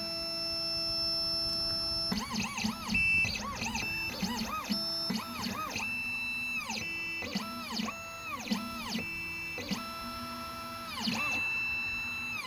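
Stepper motors of an Xhorse Dolphin key machine driving its carriage and probe through an automatic jaw calibration. Each move is a whine that rises in pitch, holds steady, then falls as the motor speeds up and slows down, repeated many times with brief pauses.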